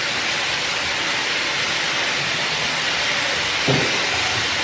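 Steady loud hiss of industrial kitchen machinery, with a short knock about three and a half seconds in as a steel food container is shifted.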